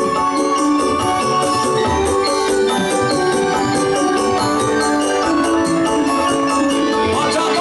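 Live campursari band playing an instrumental passage over a steady beat: electric guitar, keyboard, drums and hand percussion, with no singing.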